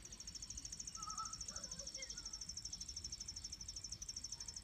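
An insect, likely a cricket, trilling: a high, rapid, evenly pulsed song that stops just before the end.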